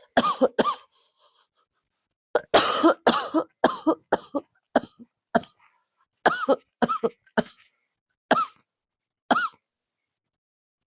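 A person coughing over and over in short, sharp coughs: two right at the start, a run of them from about two and a half to five and a half seconds in, another run around six to seven and a half seconds, then single coughs near eight and nine seconds.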